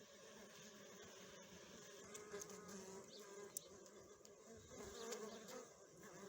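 A faint, steady hum of many honeybees at a hive, with the buzz of single bees wavering in pitch over it. One small click about three and a half seconds in.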